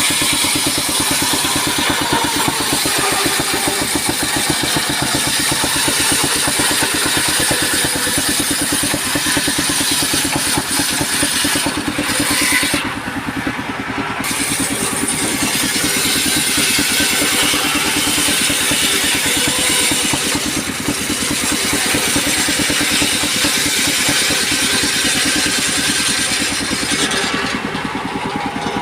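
Small engine running steadily, powering a homemade circular saw bench for timber, with a hiss of saw noise over the engine that drops away briefly about 13 seconds in.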